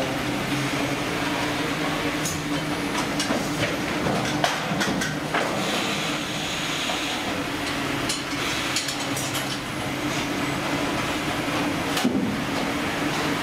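Fish-processing line running: a steady machine hum from conveyors and processing machinery, with scattered clicks and clatter over it.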